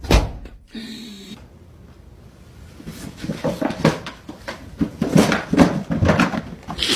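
A sharp bang, then a run of clattering knocks and rattles, thickest in the second half.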